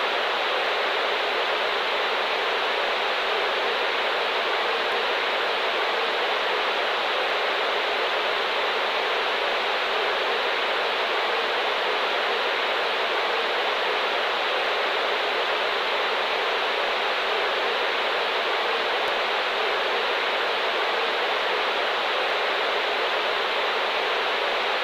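Radio static: a steady, unchanging hiss, its band limited between low and high treble, with no tones, voices or crackles standing out.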